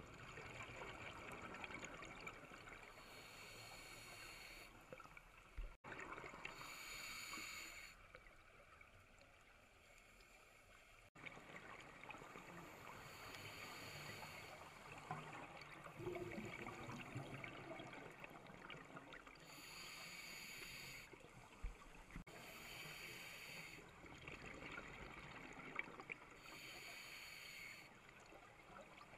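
Scuba regulator exhaust heard underwater: a diver's exhaled air bubbling out in separate bursts every few seconds, over a faint steady water hiss.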